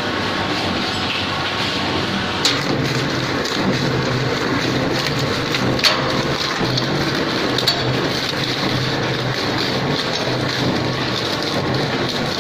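Industrial shredder running under load, its cutters chewing up packaging: a dense, steady crackling grind over a motor hum, with three sharp cracks as pieces snap in the cutters.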